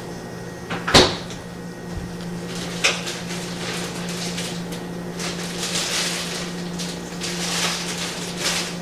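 Pen scratching on paper while drawing lines, over a steady low hum. A sharp tap about a second in is the loudest sound, with a smaller one near three seconds.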